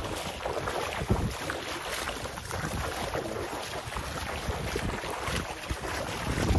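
Wind buffeting the microphone in irregular gusts, over the rush of sea water.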